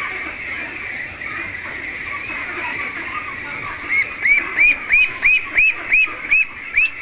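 Young Pekin ducks peeping in a steady din. From about four seconds in, one duck close by peeps loudly and repeatedly, about three calls a second.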